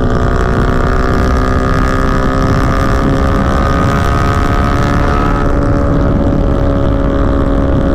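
Small motorcycle engine running at steady, even revs while cruising on a highway, its note holding almost constant pitch. Wind rushes over the microphone underneath it.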